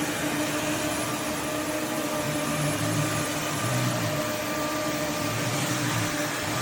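Roborock F25 Ace cordless wet-dry vacuum mop running on a hard floor: a steady suction rush with a constant motor whine and hum.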